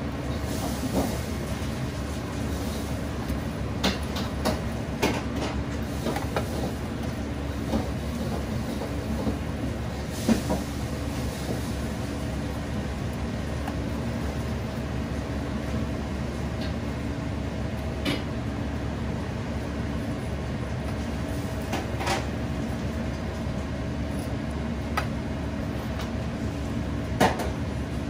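Steady hum of kitchen machinery, with scattered sharp clinks of steel tongs and a spoon against a wire draining rack and steel tray as fried chicken pieces are lifted out, about a dozen in all, the loudest about ten seconds in and near the end.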